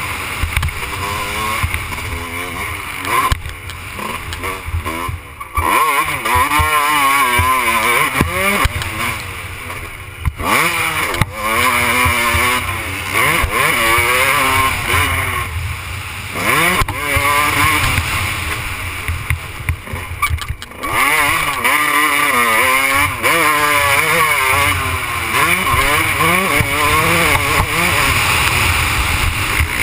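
Motocross dirt bike engine, heard from the rider's helmet camera, revving up and falling back again and again as the rider works the throttle and gears around the track, with a few brief cuts in power. Wind noise rumbles on the microphone underneath.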